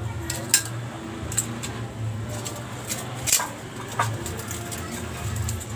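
Metal tongs clicking against a cup and plate as fried lumpiang Shanghai are lifted out, with a few sharp clicks and light crackling from more lumpia frying in oil, over a steady low hum.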